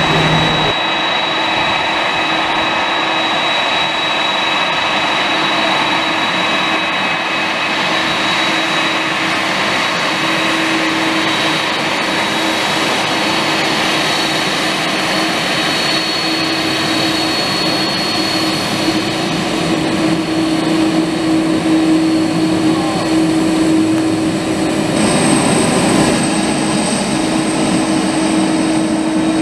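Jet engines of a taxiing American Airlines Boeing 767 running at idle thrust: a steady jet whine over a low hum, growing a little louder about twenty seconds in.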